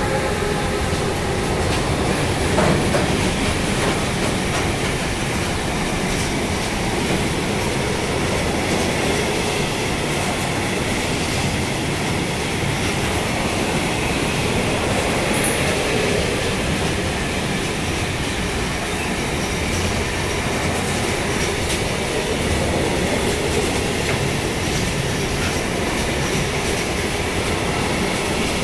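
Wagons of a long intermodal freight train, pocket and container wagons, rolling past close by: a steady, loud rumble of steel wheels on the rails.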